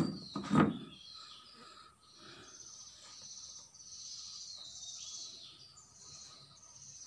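Faint high-pitched chirring of insects and birds, with a brief loud burst of noise about half a second in.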